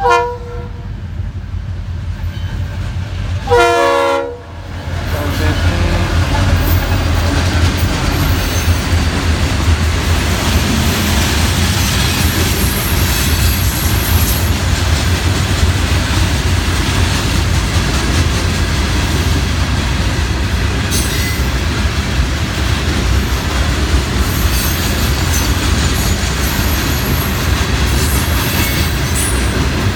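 Two blasts of a diesel locomotive horn, a short one and then a longer one about four seconds in, from a Florida East Coast freight led by two EMD SD40-2 locomotives. The locomotives' diesel engines then rumble by, followed by a steady loud rumble and clatter of loaded rock hopper cars rolling past on the rails.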